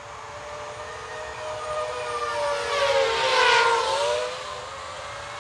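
DJI FPV drone's propellers whining as it flies past low, getting louder to a peak about three and a half seconds in, the pitch dropping as it passes and then fading away.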